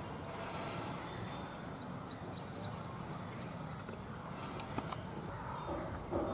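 Birds chirping in short rising calls, with a quick run of four about two seconds in, over steady outdoor background noise. A couple of faint clicks come near the end.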